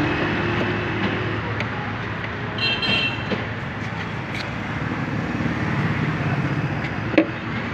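Steady background din of the kind road traffic makes, with a brief high-pitched tone about three seconds in and a sharp click near the end.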